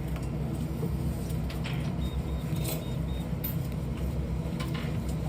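Steady low hum with a few light clicks, and faint high beeps in short pulses about two seconds in.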